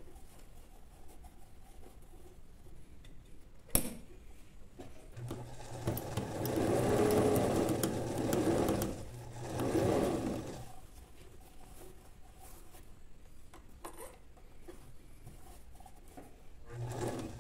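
Straight-stitch sewing machine running and stitching through cotton fabric for about five seconds from roughly five seconds in, easing off briefly partway, then starting up again near the end. A sharp click comes just before it first starts, and a fainter click falls in the quiet stretch.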